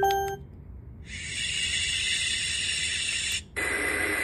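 Dreamegg portable white noise machine's speaker: the last note of its chime lullaby rings out, then about a second in a steady high hiss of white noise plays. Just before the end it cuts briefly and switches to a fuller, lower noise sound.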